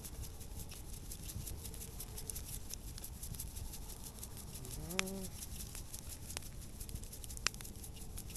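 Wood fire crackling with a steady run of small pops, and sharper snaps about five and seven and a half seconds in. A brief rising hum-like voice sound comes about halfway through.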